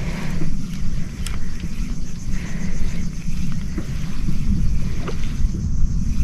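Wind buffeting the microphone, a loud, uneven low rumble, with a few light ticks.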